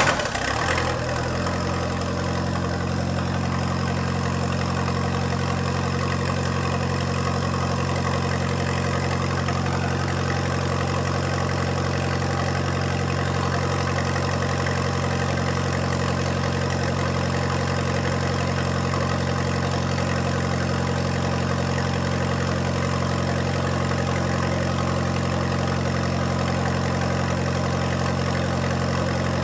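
Ford Ka's four-cylinder petrol engine, newly fitted with a KO3 turbo, idling steadily just after starting, with no exhaust pipe on the turbo outlet. This is its first run after the turbo conversion.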